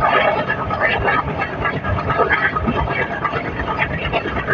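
Diesel-hauled express train running: a steady rolling and rushing noise of wheels on rail and wind, heard from aboard a coach.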